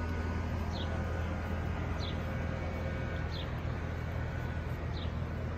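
Steady low hum of outdoor background noise, with a short, high, falling chirp repeated about every one and a half seconds.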